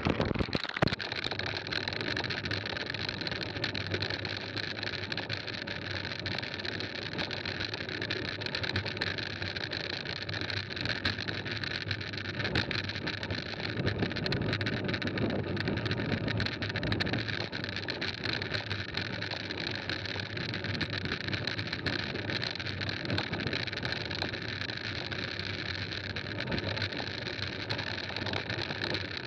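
Mountain bike tyres rolling over a loose gravel road at riding speed, with wind noise on the action camera's microphone; a steady, unbroken rolling noise.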